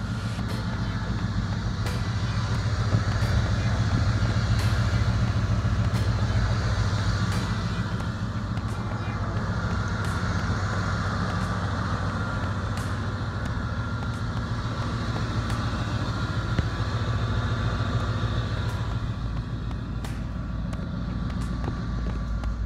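Engine of a GMT400 Chevy K1500 pickup idling steadily, a low, evenly pulsing rumble.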